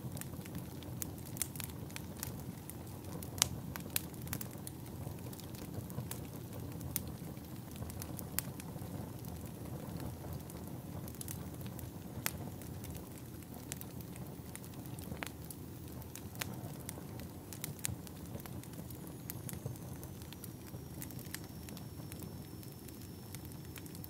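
Wood fire crackling: irregular sharp pops and snaps over a steady low rumble of the flames, with one louder pop a few seconds in.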